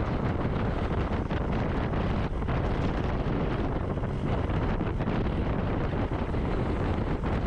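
Steady wind noise buffeting the microphone, a continuous rumbling rush with no pauses.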